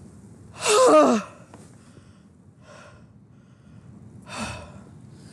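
A man's voice lets out a loud cry that falls in pitch about a second in, followed by a couple of hard, gasping breaths. He is out of breath from adrenaline.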